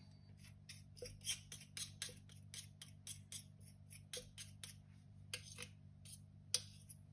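Metal fork scraping sticky rye sourdough starter off a metal spoon into a glass jar: a quick, uneven series of light metallic clicks, about three or four a second.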